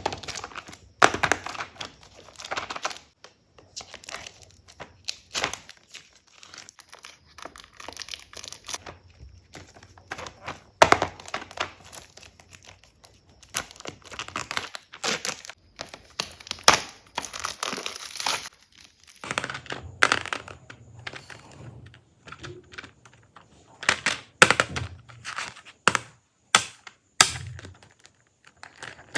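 Packaging being handled and opened by hand: irregular crinkling and tearing of wrapping, with sharp clicks and thunks as items are handled and set down.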